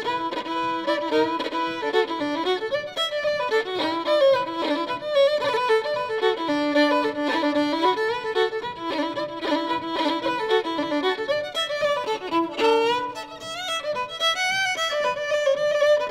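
Instrumental music: a melody of quickly changing notes, rising and falling, over an accompaniment.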